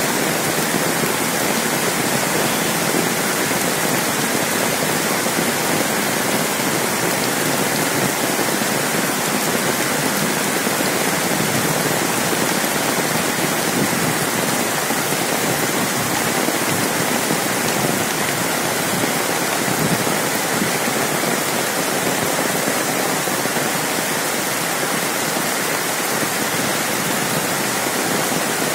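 Rain falling steadily on corrugated metal roofs and foliage: a continuous, even hiss of rain with no let-up.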